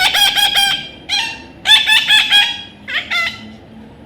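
Parrot squawking: quick series of short, repeated calls in about four bursts, the longest ones near the start and about halfway through.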